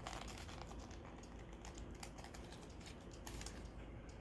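Faint, irregular light clicks and rustles of small objects being handled, like fiddling with a toy's plastic parts and packaging.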